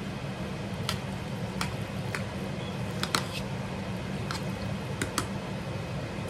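A metal spoon stirring macaroni and cheese in a stainless steel saucepan: wet squishing of the pasta in thick cheese sauce, with several sharp, irregular clicks as the spoon knocks against the pan.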